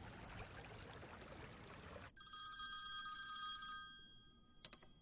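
A mobile phone ringtone starts about two seconds in, a steady electronic ring of high tones lasting under two seconds, after a stretch of faint hiss. It ends with a couple of sharp clicks.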